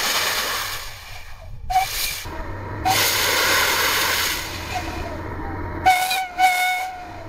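Steam whistle on a home-built steam motorcycle blowing in several blasts, mostly a loud rushing hiss of steam, with a clear whistle note near the end. It is being blown to drain excess water from an overfilled boiler, whose high water level was sending water into the engine and causing water hammer.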